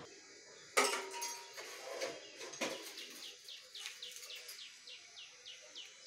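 A sharp knock about a second in and a smaller one a couple of seconds later, then a bird calling in a quick run of short falling chirps, about three a second.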